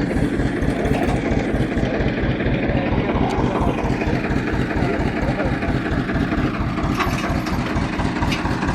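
Diesel farm tractor engine idling with a steady, rapid low throb.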